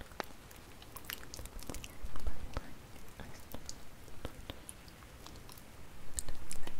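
Wood fire crackling: irregular sharp pops and snaps, with louder low rumbling swells about two seconds in and again near the end.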